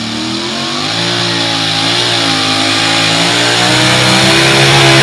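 Two-wheel-drive pulling truck's engine running at high revs under load as it drags the weight sled. Its pitch wavers up and down, and it grows steadily louder as the truck comes closer.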